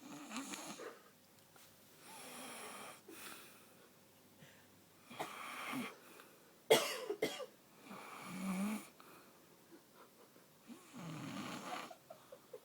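A person snoring, rough noisy breaths coming every two to three seconds, with one sudden, much louder burst about halfway through.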